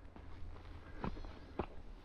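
Footsteps of a hiker walking up a dirt trail crossed with tree roots, a step about every half second, the two firmest landing about a second in.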